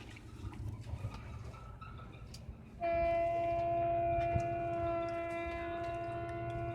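A loud, steady horn-like tone starts abruptly about three seconds in and holds on one pitch, over a low steady hum.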